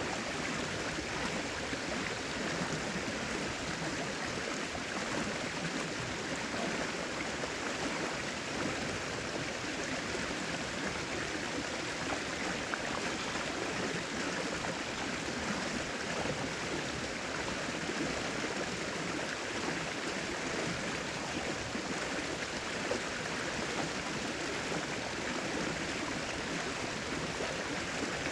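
Flowing river water rushing steadily, an even, unbroken wash of noise.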